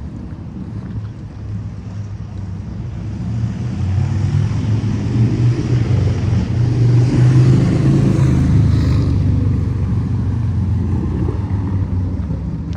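A motor vehicle driving past on a city street: low engine rumble and road noise that build up, are loudest about seven to eight seconds in, then fade away.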